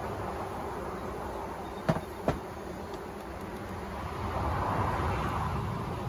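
Honeybees buzzing around an open hive, the buzz swelling for a moment near the end. Two sharp knocks about two seconds in, as frames are handled.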